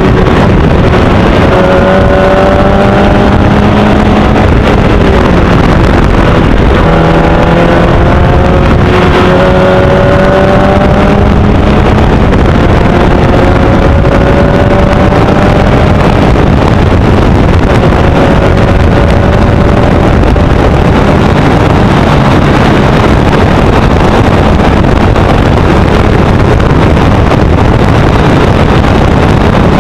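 Formel Easter single-seater race car's engine at full throttle, its pitch climbing slowly again and again as it accelerates up through the gears, with breaks at the shifts. Loud wind rush on the onboard microphone.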